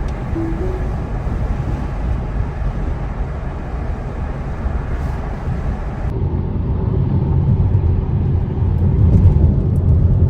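Road and tyre noise of a moving Tesla Model S, an electric car with no engine sound, heard as a steady low rumble that grows a little louder near the end.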